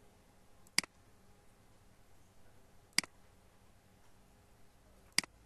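Three single computer mouse clicks, about two seconds apart, over a faint steady hum.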